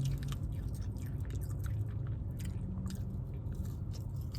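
Close-up chewing and biting of food, with scattered short wet mouth clicks, over a steady low hum.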